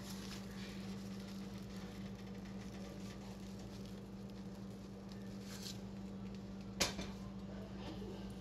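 Goya Adobo seasoning shaken from its shaker bottle onto raw chicken legs, heard as faint rustling over a steady low hum, with one sharp click about seven seconds in.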